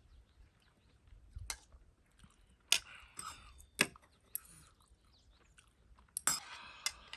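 A person eating instant ramen: quiet chewing, broken by four sharp clicks of eating utensils, the last and loudest near the end, followed by a short noisy stretch.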